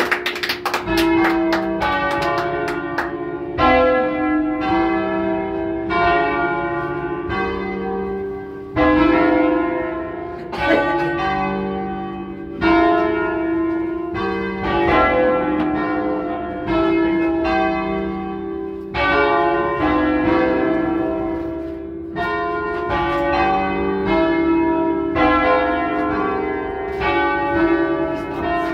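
Church bells of a five-bell ring in C3-flat, bronze bells cast by the Barigozzi brothers in 1940, striking one after another every second or two. Each stroke rings on under the next, heard close from inside the bell tower. Hand clapping runs through the first few seconds.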